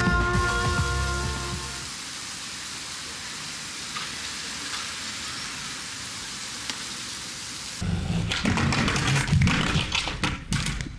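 Background music fades out over the first two seconds, leaving a steady hiss of street background. About eight seconds in, a skateboard rolls and clatters in a run of sharp knocks as the skater slams down onto the pavement.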